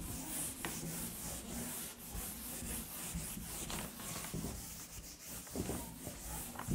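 Faint, steady rubbing or scratching noise, with a low hum underneath.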